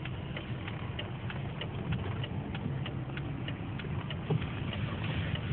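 A car's indicator flasher ticking evenly, about three clicks a second, over the steady low hum of the engine and road heard inside the cabin.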